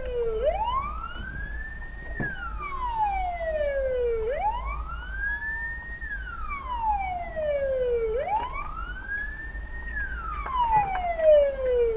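Siren wailing, sliding slowly up in pitch and back down about every four seconds, over a low steady road rumble.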